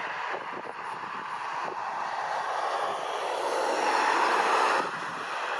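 Airbus A320-214's CFM56 jet engines running as the airliner rolls past on the ground: a steady whooshing jet noise that swells to its loudest about four seconds in, then drops off suddenly near the end.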